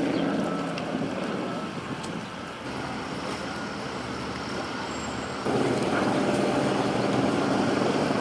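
Steady engine and traffic-like noise of motor vehicles, jumping louder about five and a half seconds in.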